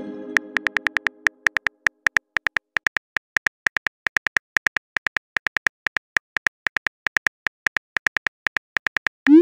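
Simulated phone-keyboard typing clicks from a texting-story app, rapid and slightly uneven at about four or five a second, as a message is typed out. A chime fades out over the first second or so, and a short rising swoosh near the end marks the message being sent.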